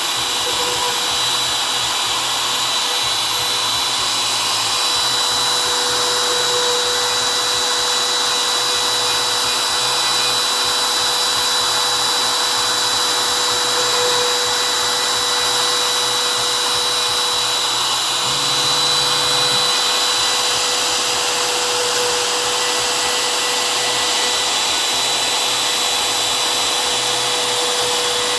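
CNC router spindle running steadily with a high, even whine as it cuts PVC, with a brief change in tone about two-thirds of the way through.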